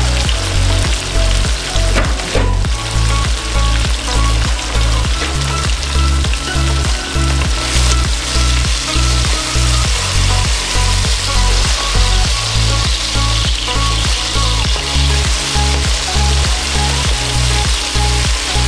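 Tilapia frying in hot oil, a steady sizzle, under background music with a steady beat.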